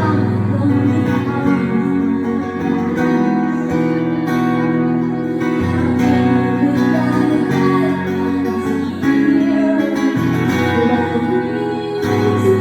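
Live song performance led by acoustic guitar, with the bass notes shifting every second or two as the chords change.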